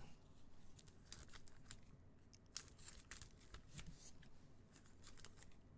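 Faint, intermittent crinkling of foil trading-card pack wrappers being handled, in short spells of crackles.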